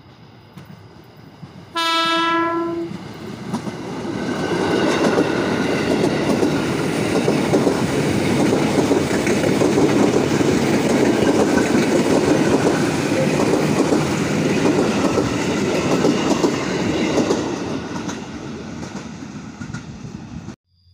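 KRL Commuter Line electric multiple-unit train sounding one horn blast, about a second long, some two seconds in. It then passes close by with a loud, steady rumble and clatter of wheels on the rails, which fades as it moves away and cuts off suddenly just before the end.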